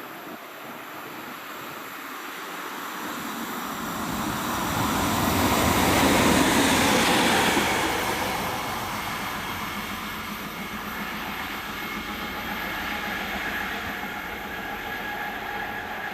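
DB Cargo class 185 electric locomotive passing at the head of a freight train, loudest about six seconds in, followed by the steady rolling noise of the freight wagons going by.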